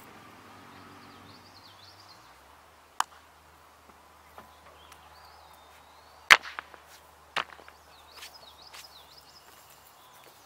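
Rocks tossed out of a tilled garden plot landing with sharp knocks, three times, the loudest about six seconds in, with birds chirping.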